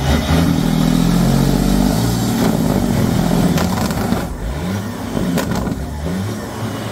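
Classic Peterbilt semi truck's diesel engine revving: held at steady high revs for about two seconds, then several quick blips of the throttle that rise and fall in pitch.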